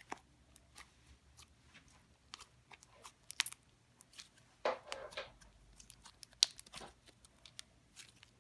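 Light pink slime being squished and stretched by hand, giving irregular sticky popping and crackling clicks, with a longer squelch about halfway through.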